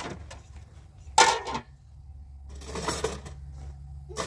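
A metal pot lid clanks once against a stainless cooking pot and rings briefly, followed a couple of seconds later by a softer rustling scrape.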